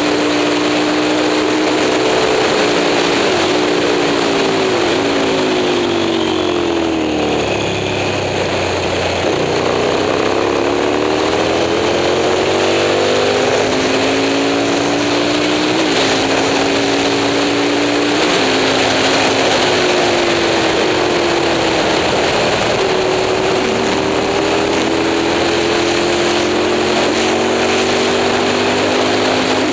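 Moto Morini 350 racing motorcycle engine running hard. Its note falls in steps through downshifts to a low point about eight seconds in, then climbs again under acceleration, with sharp drops at each upshift, and runs at high revs near the end.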